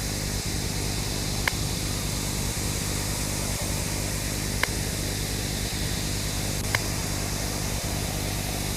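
TV static: a steady hiss of white noise over a low buzzing hum, with three short sharp clicks at uneven intervals.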